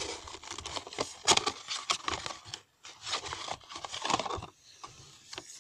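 A paperboard cologne box being handled and pulled out of a cardboard carton: irregular rustling and scraping of card with a few sharp clicks and knocks, pausing briefly about two and a half seconds in.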